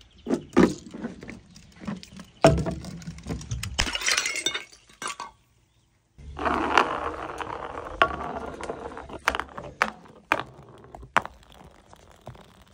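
Glass soda bottles clinking, knocking and breaking in a run of sharp clinks and crashes. The sound cuts out for about a second near the middle, then more clattering glass follows.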